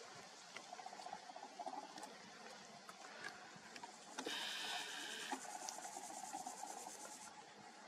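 Faint open-air background with scattered small clicks, and a small motor whirring for about a second a little past halfway: the Nikon P1000's zoom motor working as the shot closes in.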